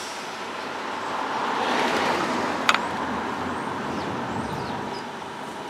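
A road vehicle passing by: a broad rush of noise that swells over the first two seconds and then slowly fades. A single sharp click sounds near the middle.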